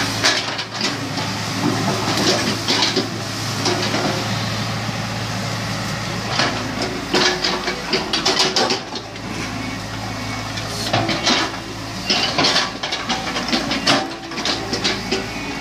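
Excavator engine running steadily at a low hum, with bursts of clicking and clatter over it about a third of the way in and again near the end.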